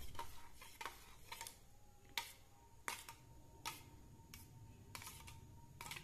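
Metal spoon clinking lightly against a stainless steel bowl while stirring sugar into thick yogurt: about nine soft clicks, roughly one every 0.7 s, some leaving a faint ring.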